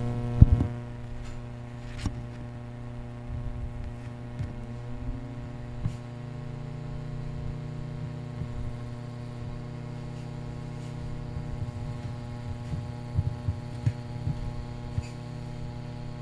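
Steady electrical mains hum from the powered amplifier and power-supply setup, with a few light clicks and knocks as the remote wire is connected.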